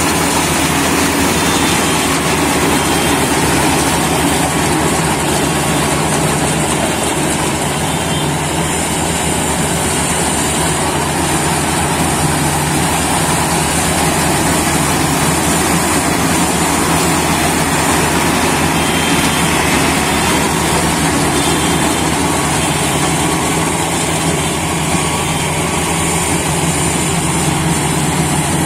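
GAM tracked rice combine harvester running steadily under load as it cuts the crop: engine and harvesting machinery running together at an even pitch.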